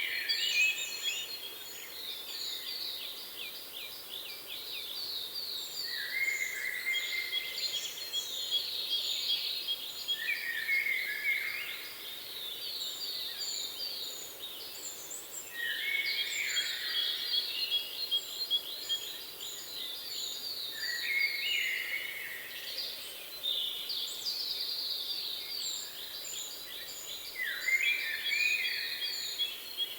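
Several songbirds singing over one another: fast trills of rapid repeated notes, falling whistled phrases and short high chips, each song coming back every few seconds over a faint outdoor hiss.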